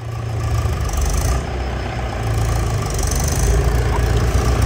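Mahindra 475 tractor's diesel engine running as the tractor drives closer, with a low, throbbing sound that grows steadily louder.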